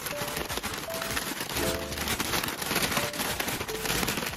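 Packing paper from a large shipping box crumpling and crackling as it is handled, with dense, continuous crackling.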